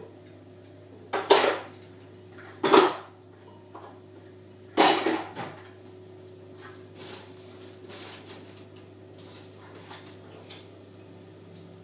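Pots, pans and cutlery clattering on a kitchen counter: three loud clatters in the first half, then lighter scattered knocks.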